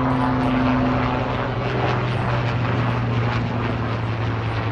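Helicopter flying, a loud steady hum that gradually fades.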